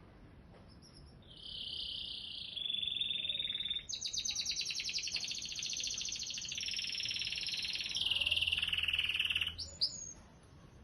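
Domestic canary singing a long song made of rapid trilled rolls, each a fast repetition of one high note, switching to a new roll every second or two. The song begins about a second in and ends with a couple of quick rising sweeps near the end.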